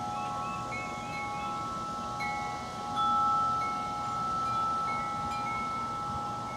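Wind chimes ringing: several long tones at different pitches sound together and fade slowly, with a louder strike about three seconds in.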